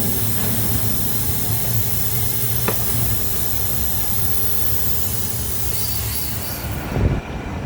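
A machine running with a steady low hum and an even hiss; about seven seconds in there is a thump and the hiss cuts off abruptly while the hum goes on.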